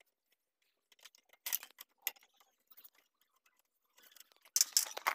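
Scattered light metal clicks and taps of a T-handle socket spanner working the bolts on a Honda CD-70's seat pan, with a busier run of clicks near the end.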